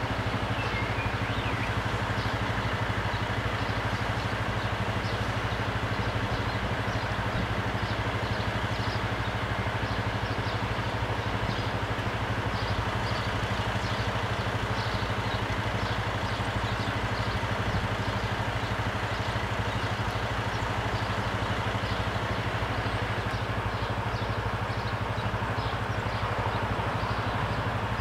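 Car and motorcycle engines idling steadily in a queue of waiting traffic, with scattered faint high ticks over the low, even hum.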